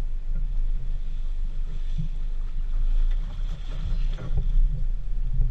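Water splashing and sloshing about four seconds in as a flathead catfish is hauled up at the surface by hand, over a steady low rumble.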